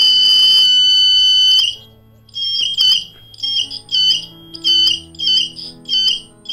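Piezo buzzer of a simple BC547 transistor metal detector beeping as a metal plate passes over its search coil, signalling metal detected: one steady high beep of about two seconds, then a run of short beeps, a little under two a second.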